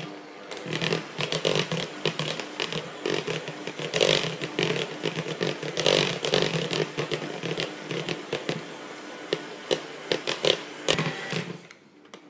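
Electric hand mixer with twin beaters running in a bowl of thick, fridge-cold pastry cream: a steady motor hum with the beaters scraping and clattering against the bowl as the cream is beaten smooth. The motor stops near the end.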